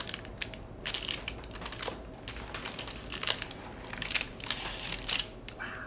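Chef's knife cutting down through a slab of freshly baked shortbread on parchment paper: a string of small crunching crackles in short clusters as the blade works through the crumb.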